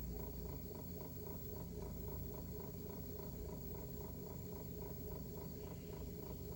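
Faint steady hum and hiss with a soft ticking about four times a second: the background noise of the recording, with no programme sound.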